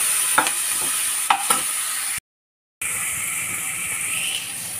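Capsicum and tomato sizzling in a non-stick frying pan while a spatula stirs them, with a few sharp scrapes and taps of the spatula on the pan in the first half. The sound cuts out completely for about half a second just past the middle, then the steady sizzle goes on.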